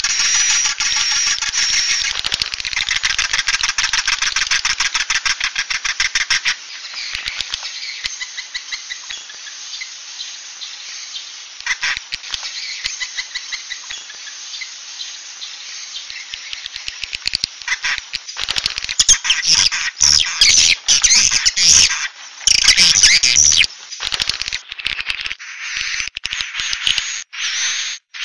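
Swiftlets' roosting call ('suara inap'), the kind of lure recording played to draw swiftlets into a nest house to roost: fast, dense, buzzy chattering clicks. It is loud for the first few seconds, softer through the middle, and swells again into loud bursts later on.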